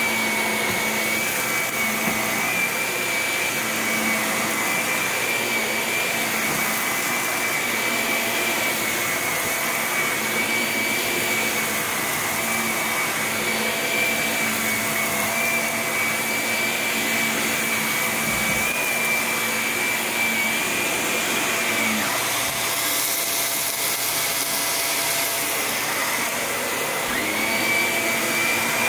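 Shark upright vacuum cleaner running while being pushed across carpet: a steady motor whine over a rushing hiss. For a few seconds near the end the whine drops out and the hiss turns brighter, then the whine returns.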